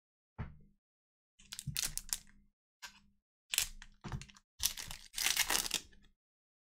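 Foil wrapper of a trading-card pack being torn open and crinkled, in about five short bursts, the longest near the end.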